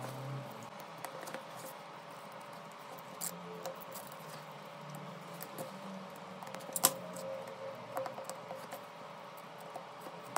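Scattered small clicks and taps of tools and parts being handled while a OnePlus 8 smartphone is worked on, with one sharper click about two-thirds of the way through.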